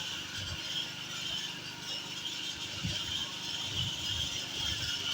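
A vehicle's engine running, with a steady hiss over it and a few low knocks.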